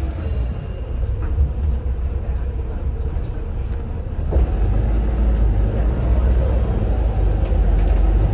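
Inside a Volvo B7RLE single-deck bus on the move: the diesel engine and drivetrain rumble steadily, growing heavier and louder about four seconds in.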